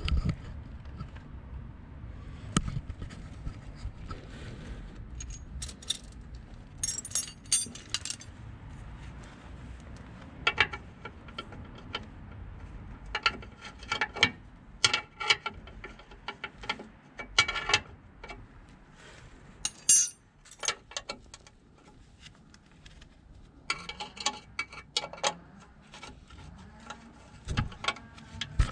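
Intermittent metallic clinks and rattles, like hand tools and metal parts being handled, coming in short clusters of sharp clicks over a low, steady background.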